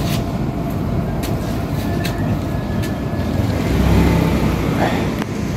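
A steady low engine-like rumble, swelling slightly about four seconds in, with a few faint clicks.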